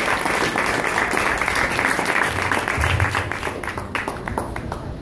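Small audience applauding, the clapping thinning out and dying away about four seconds in.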